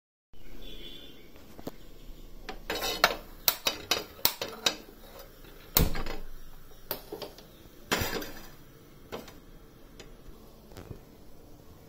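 Metal cookware clattering as a flat tawa griddle is handled on a gas stove's pan support: a quick run of sharp clinks and knocks, then two heavier knocks about two seconds apart, then a few light clicks.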